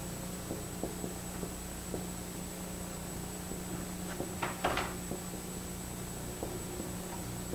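Steady low electrical hum of a lecture room with a few faint taps, and a short cluster of sharper taps about four and a half seconds in from a marker being worked on a whiteboard.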